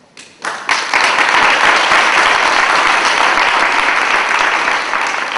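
Audience applauding: a few scattered claps about half a second in, quickly swelling into full, steady applause.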